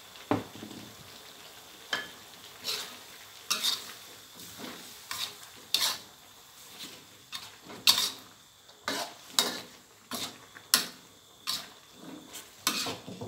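Metal spatula scraping and clanking against a metal wok as a stir-fry of pork and mixed vegetables is turned, in sharp, irregular strokes one or two a second, with a faint sizzle in between.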